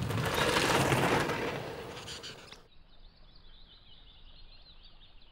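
A bicycle passes close by over a wooden footbridge: a rush of tyre and wind noise that swells and fades away within about two and a half seconds. Faint bird chirping follows.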